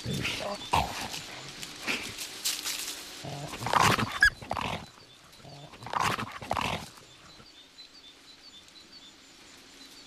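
Iberian wolves snarling in short, loud bouts as the pack attacks a red deer stag. The bouts are loudest about four and six seconds in and die down after about seven seconds.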